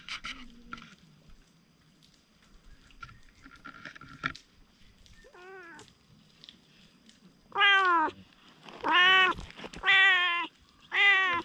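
Stray tabby cat meowing in a friendly, attention-seeking way: one faint meow about halfway through, then four loud meows about a second apart, each rising then falling in pitch.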